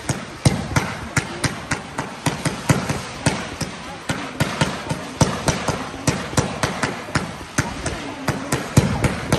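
Fireworks barrage firing in rapid succession, a steady string of sharp bangs about four or five a second as red and green comets are launched.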